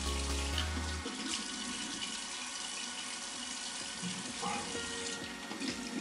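Tap water running into a bathroom sink as water is splashed over a face and beard to wet it. A low steady hum stops about a second in.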